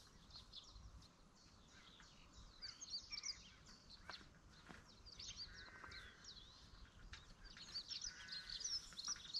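Faint outdoor birdsong, several small birds chirping, with two short buzzy calls about halfway and near the end and a few faint taps.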